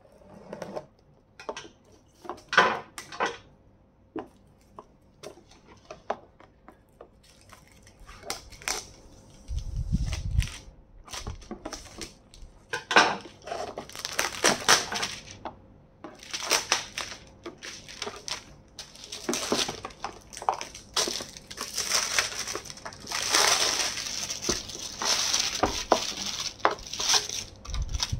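Scissors slitting the tape and cutting through a cardboard box: scattered sharp clicks of the blades at first, then longer rough stretches of scraping and crinkling as the blade works along the box. A dull thump comes about ten seconds in.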